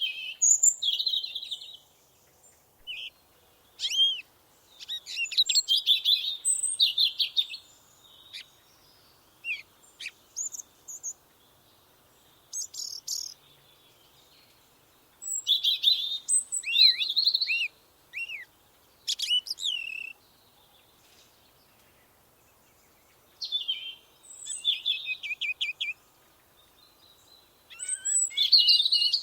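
Songbird singing in repeated bouts of quick high chirps, trills and short falling whistles, each phrase lasting a few seconds, with quiet pauses between them.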